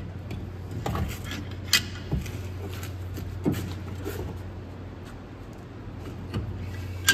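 Scattered sharp metal knocks and clicks from hand tools being worked on a brake caliper, over a steady low hum.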